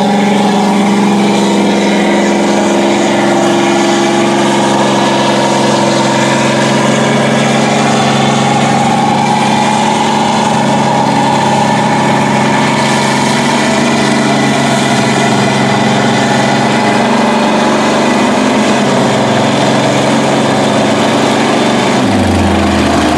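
Lifted mud truck's engine held at high, steady revs as its big mud tyres churn through a deep mud pit; the pitch stays level, then drops near the end.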